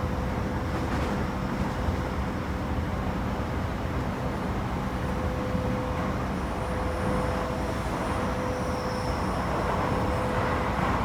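Toei 10-300 series electric train running, heard from inside the car: a steady rumble of wheels on rail with a thin steady tone, and a faint high whine in the middle.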